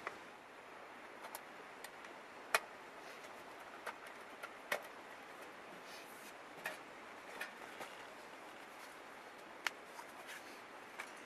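Steady rushing of a river, with irregular sharp clicks and knocks over it, the loudest about two and a half seconds in.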